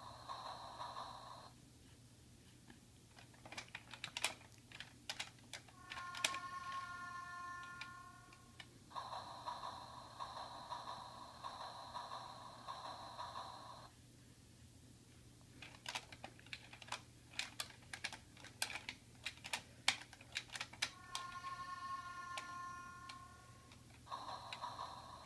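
Electronic baby activity toy playing a repeating sound sequence: a steady electronic tone, then a quick run of clicks ending in a short ringing chime. The cycle comes round twice, about fifteen seconds apart.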